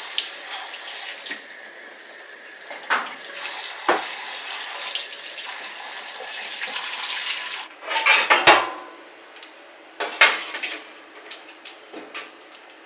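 Kitchen tap running over frozen cherry tomatoes in a ceramic berry bowl, the water pouring through the bowl's holes into the sink to thaw them; the water stops about eight seconds in. A loud clatter and a few sharp knocks follow as a baking dish is set on an oven rack.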